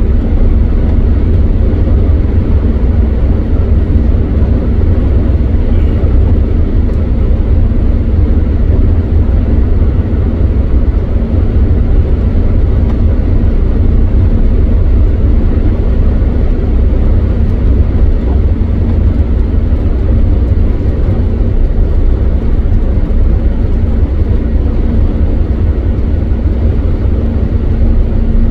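Steady, loud drone of a car at motorway speed heard from inside the cabin: a deep road and engine rumble with the hiss of tyres on a wet road.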